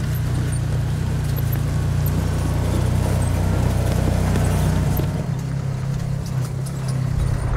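Side-by-side UTV's engine running as it drives over rough grassland, a steady low drone that weakens and turns uneven about five seconds in.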